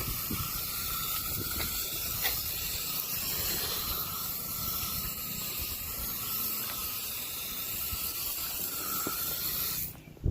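Water spraying from a garden hose nozzle fed by an Aquor flush-mount outdoor hydrant, a steady hiss at good pressure, which cuts off abruptly just before the end.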